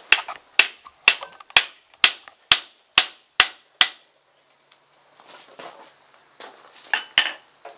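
Hand hammer striking the red-hot tip of a twisted steel auger bit clamped upright in a vise, about two blows a second, each with a short metallic ring; the nine or so strikes stop about four seconds in. A few softer knocks follow near the end.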